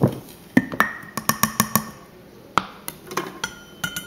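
A measuring cup clinking and knocking against the glass flour jar and the stand mixer's bowl as flour is scooped and tipped in. A quick run of taps about a second in, then scattered single knocks, some with a short ring.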